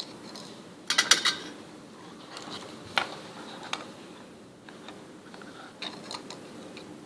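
Sharp clicks and taps of small hand tools and components being handled while soldering a through-hole kit board: a quick run of clicks about a second in, single clicks near the middle, and a few more near the end.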